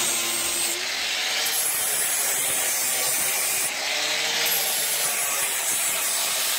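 Corded power tool scraping and grinding sound-deadening material off the sheet-metal rear wheel well of a stripped car body, making a steady scraping hiss.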